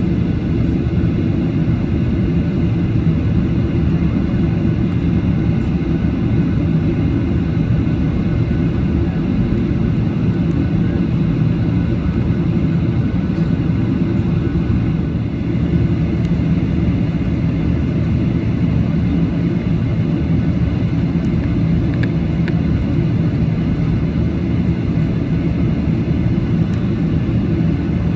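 Boeing 737-800 on the ground, a steady low rumble with its CFM56 engines at a constant setting and no rise in power.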